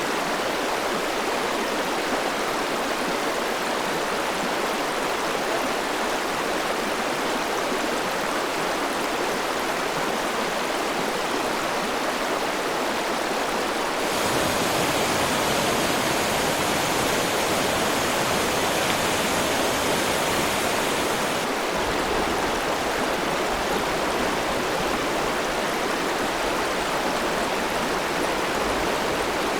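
River water running steadily over stones, an even rushing sound with no speech.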